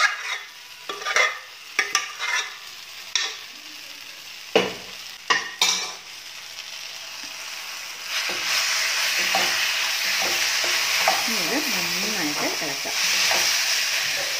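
A metal spoon knocks and scrapes several times as cooked chickpeas, yam and raw banana are scraped into a kadai of roasted coconut. From about eight seconds in, a wooden spatula stirs the mixture in the hot pan over a low flame, with a steady sizzle.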